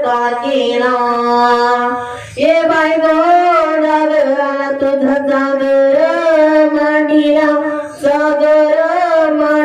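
A voice singing long, drawn-out held notes through a microphone in gondhal devotional singing, breaking off briefly about two seconds in and again near the end.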